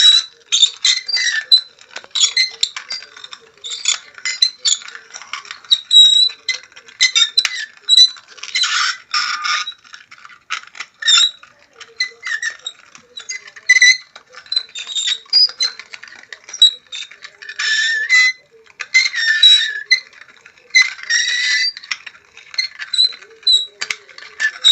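Creaking and squeaking in irregular bursts of varying length, high-pitched, with short clicks and ticks between the longer squeaks.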